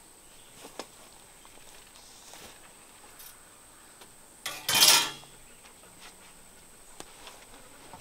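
Scattered light metallic clinks and taps from hand work on a stopped circle sawmill blade and its mandrel, with one loud rasping scrape about half a second long a little past halfway through.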